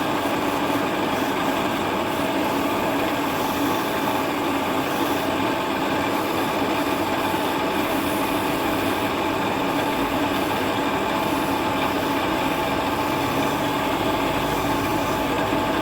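Wood-turning lathe running steadily, its electric motor humming with a constant hiss over it, as turning tools work the wood.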